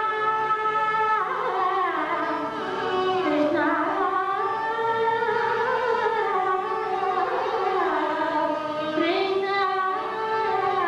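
Carnatic vocal music in raga Kalyanavasantham: a woman sings a held note, then long sliding, ornamented phrases that sweep up and down in pitch, with a violin following her line.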